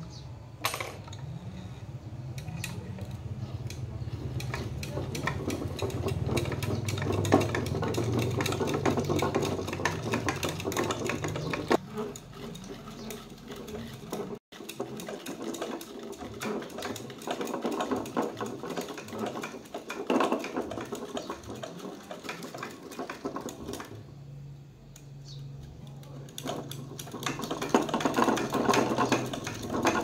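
A small machine running with rapid, dense clicking over a low hum. It is interrupted near the middle and picks up again.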